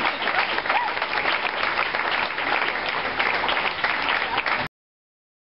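Audience applauding, with a brief cheer about a second in; the sound cuts off abruptly near the end.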